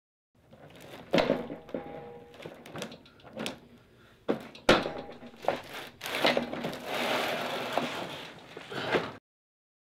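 Heavy metal chain rattling and clanking against a wooden chest as it is pulled off by hand, with several sharp knocks, then a longer stretch of continuous rattling that stops abruptly.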